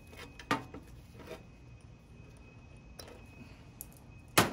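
Sharp metal clicks and taps of needle-nose pliers and spade connectors on the terminals of an AC condenser capacitor, as the wires are moved one at a time from the old capacitor to the new one. A few scattered clicks, the loudest and sharpest near the end.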